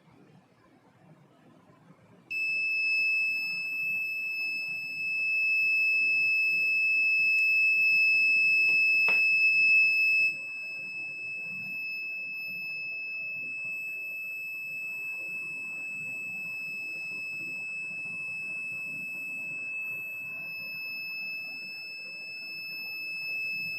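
A 5-volt electronic buzzer sounds one steady, high-pitched tone. It switches on about two seconds in, as the heated fluorescent-starter bulb's bimetal strips close the circuit. About ten seconds in it drops noticeably quieter and keeps sounding, with a single click just before the drop.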